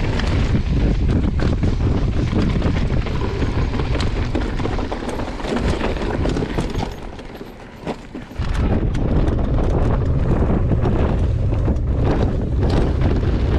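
Downhill mountain bike ride heard from the bike: wind rushing over the microphone with the bike rattling and clattering over rough dirt trail. About seven seconds in the noise drops for just over a second, then returns at full strength.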